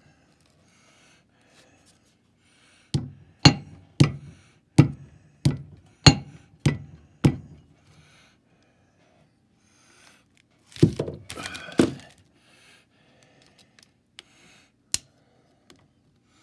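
Hammer tapping a bent Caterpillar Sixty head gasket flat where it is clamped under a steel plate: about eight sharp blows a little over half a second apart, then a quicker cluster of knocks about eleven seconds in.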